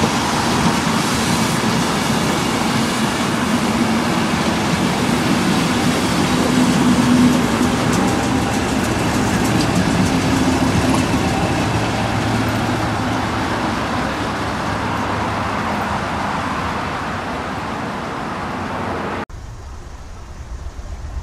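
Train running past, a steady noise of wheels and engine that is loudest about seven seconds in and then slowly fades. Near the end it cuts off abruptly to quieter background noise.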